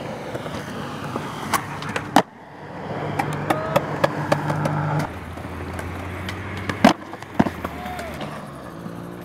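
Skateboard wheels rolling on smooth concrete, broken by several sharp clacks and slaps of the board hitting the ground. The loudest slap comes about seven seconds in, as a skater bails a flip trick and falls.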